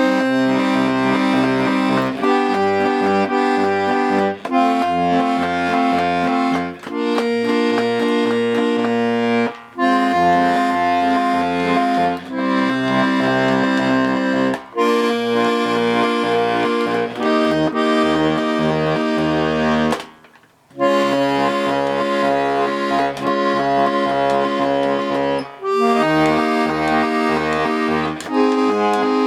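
Bass side of a Hohner Corona III diatonic accordion in B♭/E♭/A♭ being sound-tested: bass notes and chords played in short repeated strokes, moving to a new note and chord every two seconds or so, with a brief pause about twenty seconds in.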